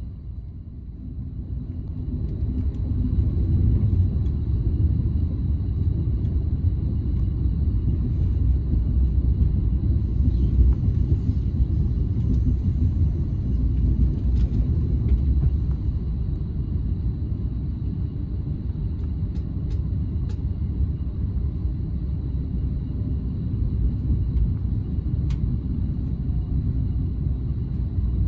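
Running noise of a DSB IR4 electric multiple unit heard from inside the passenger cabin: a steady low rumble of the wheels on the rails that grows louder over the first few seconds, with a faint, steady, high whine above it.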